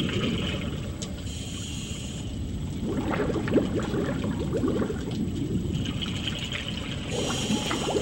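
Water sloshing and trickling, with a brief hiss about a second in and again near the end.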